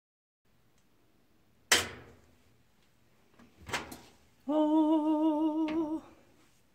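Handling noise from a small camera being lifted out of the washer: a sharp knock, then a lighter one two seconds later. It is followed by a loud held tone with a steady wavering pitch, about a second and a half long.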